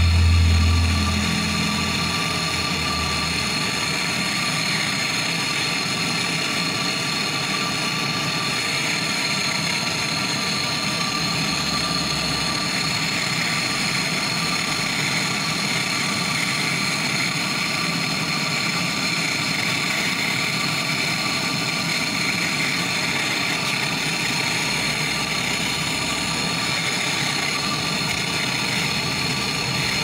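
Gas brazing torch burning with a steady hiss while it heats a copper tube joint at a refrigerator compressor, with a low rumble in the first second or two.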